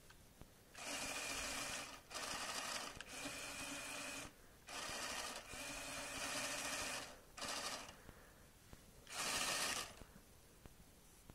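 LEGO Power Functions electric motor spinning two propellers through Technic gears out of water, a steady buzzing whine with gear noise. It is switched on and off in about seven short spells of half a second to two seconds.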